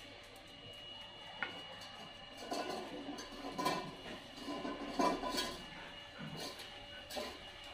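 Stainless-steel dog bowls clinking and clattering on a tiled floor as dogs nose and drink from them, in a few scattered bursts.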